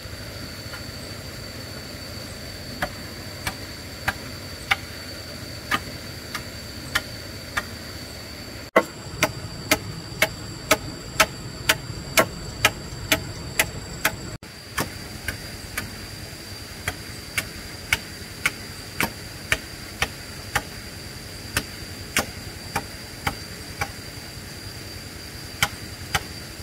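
Rhythmic hammering: sharp strikes at a steady pace of roughly one and a half to two a second, over a steady high-pitched whine.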